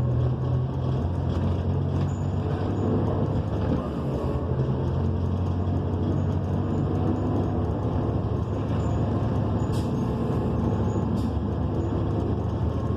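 Cabin sound of a New Flyer XN40 city bus under way: its Cummins Westport ISL G natural-gas engine and Allison B400R automatic transmission running with road noise as a steady low hum. Two brief clicks sound late on.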